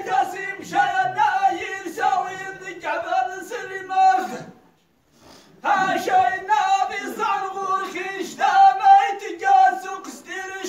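Men's voices singing a chanted poem together, with one steady lower note held beneath the melody. The singing breaks off for about a second near the middle, then resumes.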